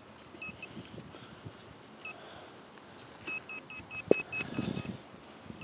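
Handheld metal-detecting pinpointer beeping: a few single high beeps, then a quick run of about six beeps a second as it closes in on a coin in the loosened dirt. Hands scrape the soil, with one knock about four seconds in.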